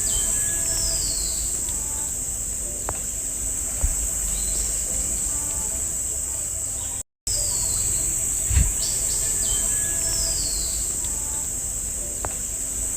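Forest ambience: a steady high-pitched insect drone with scattered bird chirps and short falling whistles over a low rumble. The sound cuts out for an instant about seven seconds in, and the same stretch of ambience then plays again.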